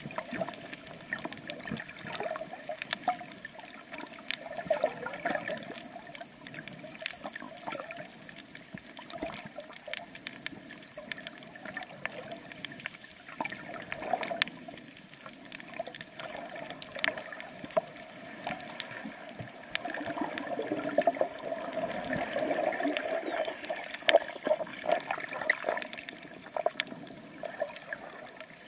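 Water gurgling and sloshing around a camera held in the sea while snorkelling over a reef, with many irregular small clicks and a louder stretch of churning about twenty seconds in.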